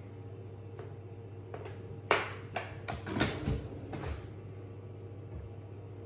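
A handful of small, sharp metal clicks and taps in the middle, the first the loudest, as stakes are swapped and set in a watchmaker's staking tool, over a steady low hum.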